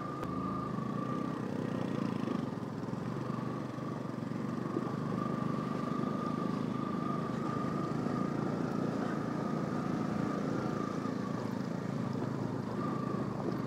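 Motorcycle engine running steadily while the bike is ridden along, with a thin steady whine above the engine and road noise.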